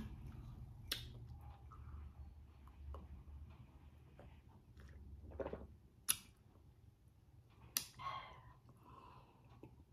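A person taking a pill with water from a glass mug: a few sharp clicks from handling the glass, with soft sipping and swallowing, over a low steady room hum.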